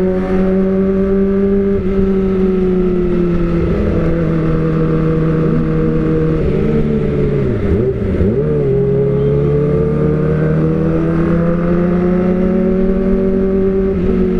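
Kawasaki ZX-25R's 249 cc inline-four, breathing through an Austin Racing aftermarket silencer, running steadily while being ridden. About eight seconds in the revs drop sharply and come straight back, then climb slowly.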